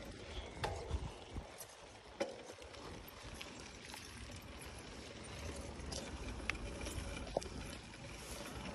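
Mountain bike rolling along a paved path: steady tyre and low wind rumble, with a few scattered sharp clicks and rattles from the bike over bumps.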